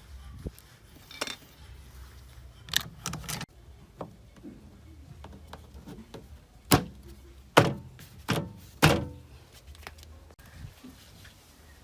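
A series of separate sharp knocks and clinks, the four loudest coming close together about seven to nine seconds in.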